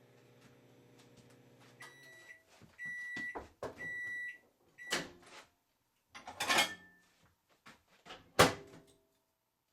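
AmazonBasics microwave oven running with a steady hum that stops about two seconds in, followed by a few high-pitched beeps, two of them long, signalling the end of the cycle. Clattering follows, with a sharp loud knock near the end.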